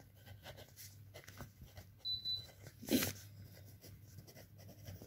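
A pen writing on notebook paper: faint, scratchy strokes. A single short breathy sound about three seconds in.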